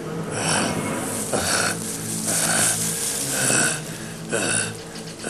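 A man's harsh, rasping breaths or growls, about one a second, with a low steady tone underneath.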